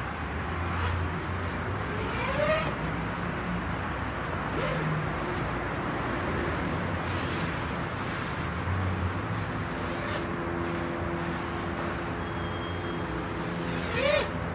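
Steady urban traffic rumble with the whine of an FPV quadcopter's brushless motors rising sharply in pitch twice, about two seconds in and again near the end, where it is loudest.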